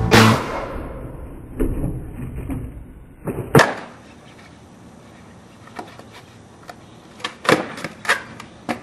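Skateboard clacking and knocking on concrete: one sharp clack about three and a half seconds in, then several lighter clacks near the end. A music track rings out and fades in the first second.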